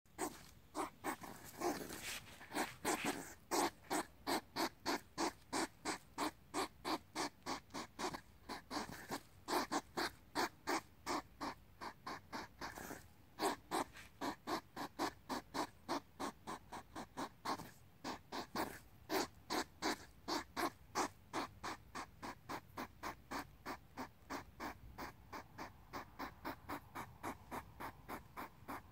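Hedgehog snorting and puffing in a steady rhythm, about three puffs a second, the huffing of a hedgehog courting another hedgehog nose to nose.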